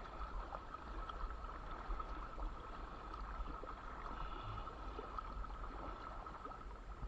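Kayak paddle strokes: the blades dipping and pulling through calm water, with splashing and gurgling alongside the hull.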